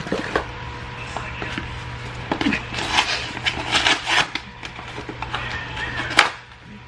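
Small cardboard box being torn open by hand: a run of scratchy rips and crackles of paperboard, with one sharp, louder tear near the end.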